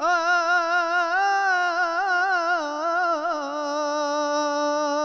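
A man singing unaccompanied into a microphone, holding one long vowel with vibrato. The note wavers through an ornamented run in the middle and lasts about five and a half seconds.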